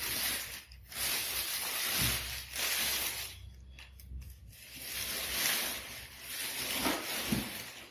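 The TV's packaging cover rustling and rubbing as the TV is slid out of it, in several long, noisy swishes with short breaks between them.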